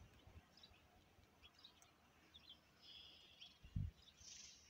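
Faint, scattered bird chirps over quiet open-air background, with one brief low thump a little before the end.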